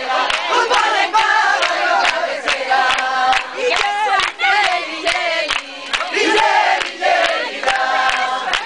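Many voices singing together loudly over a quick, sharp, steady rhythmic beat, with a crowd's noise around it.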